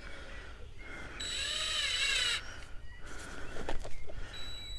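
Cordless drill with a twist bit drilling out the stripped metal tripod-mount thread in the base of a Canon 1DX camera. About a second in the motor whines for about a second, its pitch rising and falling, and a short whine comes again near the end.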